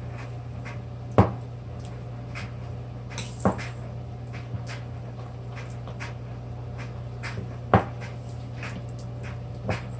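Metal spoon stirring thick icing in a small glass bowl, clinking and tapping against the glass: sharp clinks about a second in, at about three and a half seconds and near eight seconds, with lighter ticks between. A steady low hum runs underneath.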